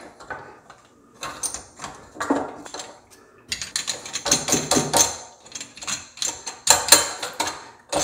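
Hands fitting a plastic mounting piece onto a faucet's brass valve body and turning it tight: a run of plastic clicks, scrapes and rattles, busier from about halfway in.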